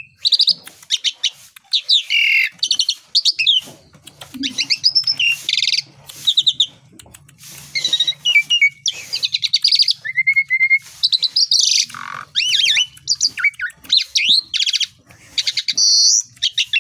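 Asian pied starling (jalak suren) singing a long, varied song of rapid chirps, trills and rising and falling whistled notes, delivered in quick phrases with short gaps between them.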